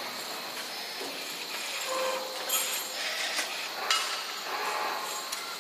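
Bent steel exhaust-hanger rods being handled: a few sharp metallic clinks and knocks as they are lifted out of an aluminium checking fixture and set down on a steel table, over a steady background hiss.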